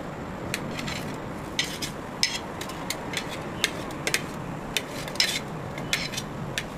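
Kitchen knife chopping hard-boiled eggs on a stainless steel plate, the blade clicking sharply against the steel with each cut, about two or three times a second and unevenly spaced.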